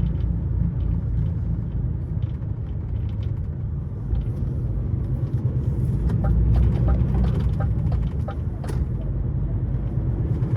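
Steady low rumble of a truck's engine and road noise heard inside the cab while driving. A run of light, quick ticks and rattles comes in about six seconds in and lasts a few seconds.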